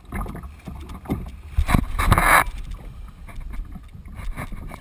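Water slapping and splashing against a kayak hull in choppy sea, in irregular small slaps over a low wind rumble, with one loud splash about two seconds in.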